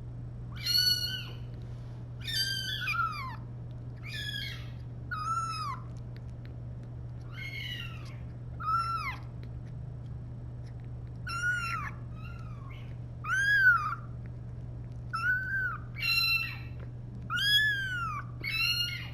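A three-week-old kitten mewing over and over: more than a dozen short, high mews, each rising then falling in pitch, coming singly or in quick pairs with pauses between.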